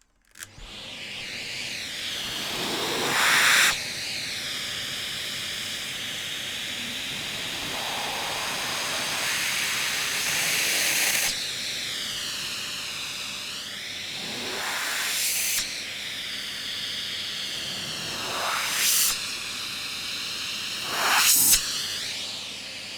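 Old Mitsubishi vacuum cleaner switched on with a click, its motor spinning up to a steady high whine over rushing air. The whine dips and recovers several times, and the airflow swells louder briefly about five times.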